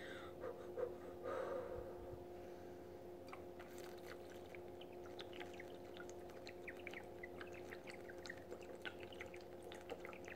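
Faint gulping and glugging of lemon juice being chugged straight from a bottle, a run of small quick wet swallowing clicks through the middle and end, over a steady faint hum.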